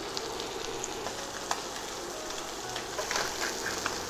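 Pork brains frying in butter in a hot skillet: a steady sizzle with scattered small pops and crackles.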